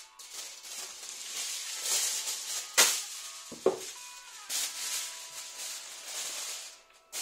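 Aluminium foil crinkling and rustling as it is pulled off the roll and pressed around the rim of a baking pan, with a couple of sharp crackles about three and four seconds in.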